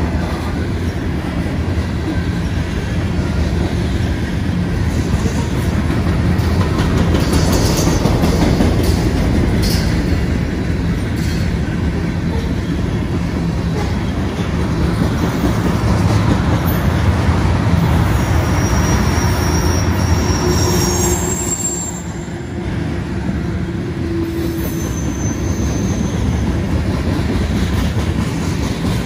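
Freight train's covered hopper and tank cars rolling past: a steady low rumble of steel wheels on rail, with a few sharp clicks from the wheels over the rails and brief high squeals about two-thirds of the way through.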